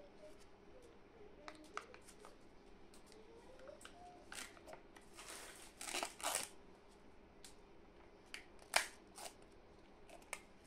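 Peel-off lid being pulled off a plastic chocolate cup by gloved hands: scattered crinkles and clicks, with the densest rustling a little past the middle and one sharp crackle near the end. A faint steady hum runs underneath.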